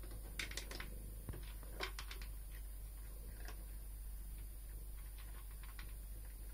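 Domestic cat eating dry kibble from a Catit Senses Digger puzzle feeder: scattered light clicks and crunches of food against the plastic tubes, in small clusters about half a second in, around two seconds and again near the end, over a faint steady hum.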